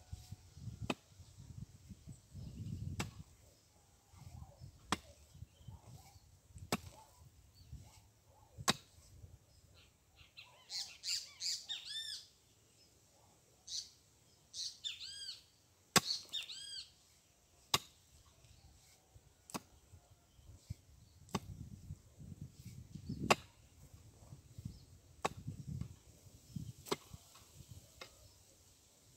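Pickaxe blows into a bank of clay soil: sharp strikes about every two seconds, with loosened earth crumbling after some of them. The blows pause through the middle, where a bird calls with a run of quick chirps.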